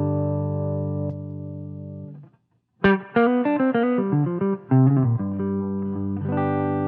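Electric guitar played through a Tube Screamer-style overdrive pedal, lightly overdriven: a chord rings and is muted about two seconds in, then a quick run of single notes, then a new chord is struck near the end and left to ring.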